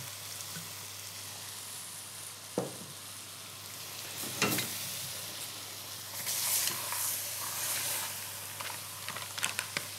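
Crab shells, vegetables and spices sizzling in a cast-iron casserole as white wine goes in, with a spoon stirring through them. Two sharp knocks come about two and a half and four and a half seconds in, and a run of light taps near the end.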